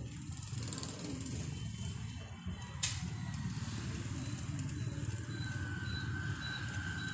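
A low steady rumble like motor traffic underlies a thin metal blade scraping and prying at the glued rim of a Bose 301 Series IV woofer, working the cone's surround loose from its frame. A sharp click comes about three seconds in, and a faint high steady whistle appears in the last couple of seconds.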